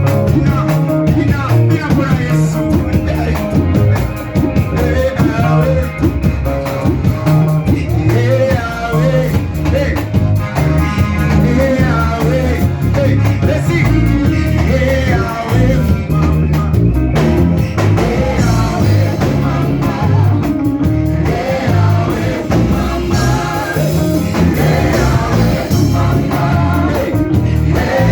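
Church worship music: singing over instrumental accompaniment with a pulsing bass line.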